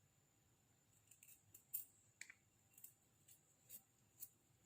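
Faint, irregular light clicks and taps, about a dozen over three seconds, as objects are handled while the ginger is fetched.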